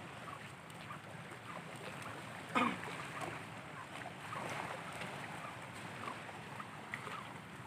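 Seaside wind and the wash of the sea, with wind buffeting the microphone. One short, sharp sound stands out about two and a half seconds in.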